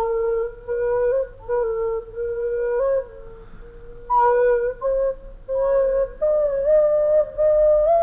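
Slow solo flute melody of held notes that bend slightly, with a short pause partway through and the line moving higher near the end.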